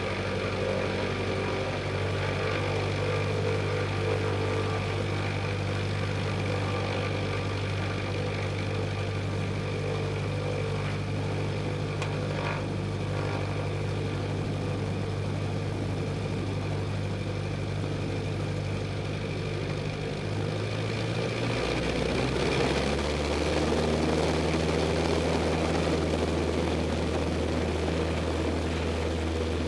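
Light propeller airplane's engine running steadily at low power; about 21 seconds in the note shifts and it grows louder as power comes up.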